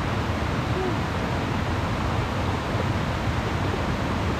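Steady rushing noise of river water churning over the rocky bank, with wind on the microphone.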